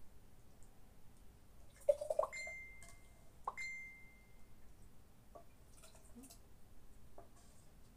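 A metal utensil knocking twice against a frying pan, about a second and a half apart, each knock leaving a short clear metallic ring, with a few faint clicks afterwards.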